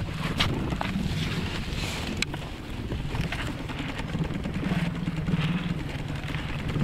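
Small outboard motor idling with a steady low hum, while slush ice grinds on the aluminium boat's hull, with a couple of sharp knocks about half a second and two seconds in.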